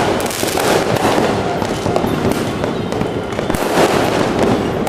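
Fireworks going off without a break: a dense crackle of many overlapping bangs and pops.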